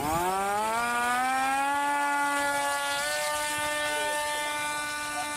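Electric RC plane's 920kv brushless motor and 8x4.5 propeller spooling up to full throttle: a quickly rising whine that levels off within about a second and a half into a steady, high-pitched drone as the plane is hand-launched.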